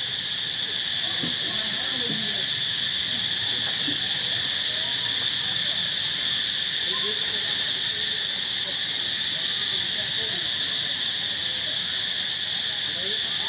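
Insect chorus: a steady, high-pitched drone that does not let up.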